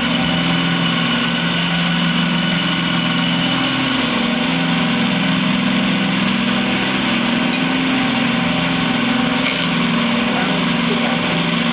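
Jumbo cast-furnace cotton candy machine running steadily, its spinning head and drive giving a continuous, even machine drone.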